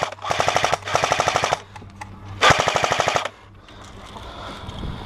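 Airsoft gun firing on full auto in rapid bursts of sharp clicks, about fifteen to twenty shots a second: a long burst over the first second and a half, and another about two and a half seconds in.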